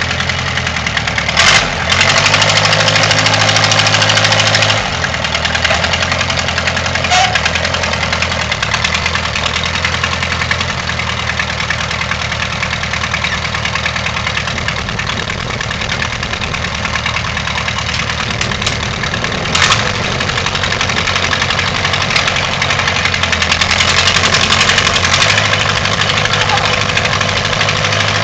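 Case 310-B backhoe's engine running at a steady idle. It speeds up and runs louder for a few seconds near the start, then drops back to idle. Two sharp clacks are heard, one early and one past the middle.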